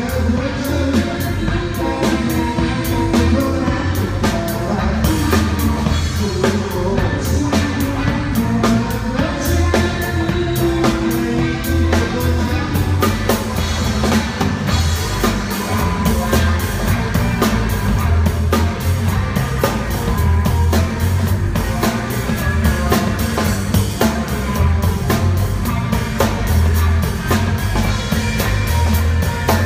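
Live rock band playing a song: drum kit with bass drum and snare hits driving throughout, electric guitars and bass, and some singing. The drums grow busier about halfway through.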